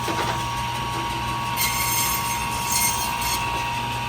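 Electric band saw at a fish counter running with a steady whine and hum, with a few short hissy scrapes in the middle.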